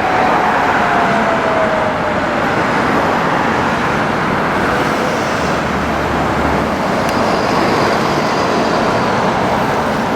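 A police motorcycle's siren winding down, its pitch falling as it fades out in the first two seconds, followed by steady traffic and road noise.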